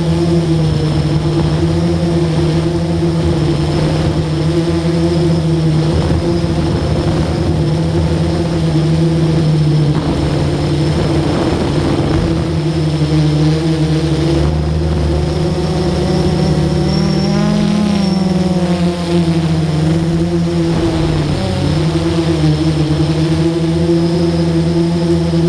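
Camera drone's electric motors and propellers humming steadily, heard up close from its onboard camera. The pitch wavers slightly with throttle, rising briefly about two-thirds of the way in and dipping a few seconds later.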